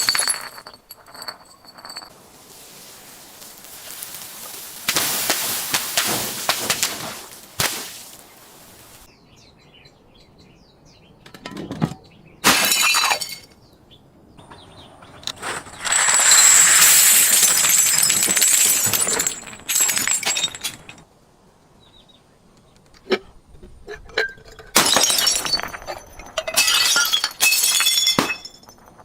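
Glass bottles breaking and being crushed: several separate bouts of shattering, crunching glass with quieter gaps between them.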